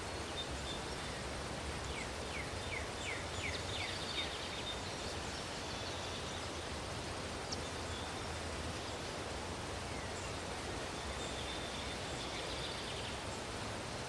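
Steady, fairly quiet outdoor background noise, with a bird singing a quick run of about six short falling notes two to three seconds in, and a few faint high chirps later.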